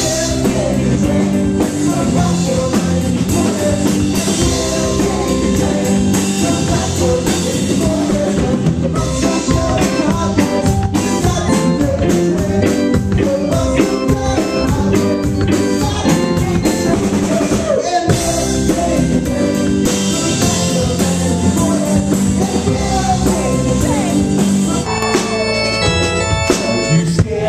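A live rock band plays an instrumental passage on drum kit, electric guitar and bass. About three seconds before the end the drums drop out, leaving held chords.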